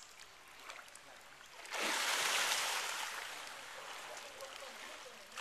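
A heavy splash and surge of water as a hippopotamus lunges through the pool, starting suddenly about two seconds in, then churning water dying away.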